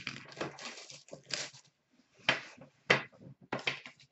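Trading cards and their packaging being handled by hand: irregular rustling and shuffling, with several sharp taps and clicks, the loudest about two, three and three and a half seconds in.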